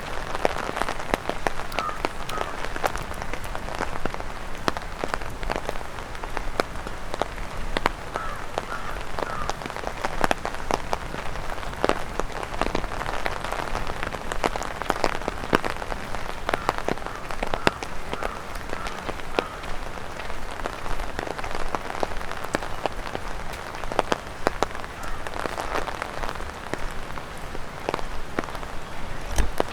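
Steady rain with many sharp, close drop taps on an umbrella overhead, from raindrops falling off tree leaves.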